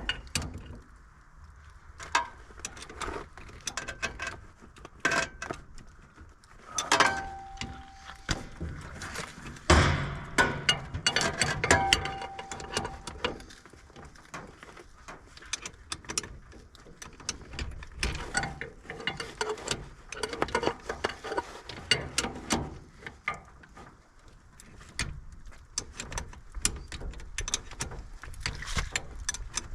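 Irregular clicks, knocks and clanks of hard objects being handled, with a brief ringing tone twice, about a third of the way in and again a few seconds later.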